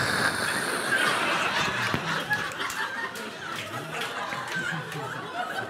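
Audience laughing together; the laughter breaks out all at once and slowly dies down.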